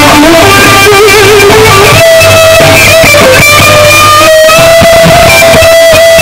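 Loud live distorted electric guitar lead from a white Les Paul-style guitar played through Bogner and Marshall amps. A line of bent notes with vibrato jumps up about two seconds in to a long held note with vibrato, over a low bass part.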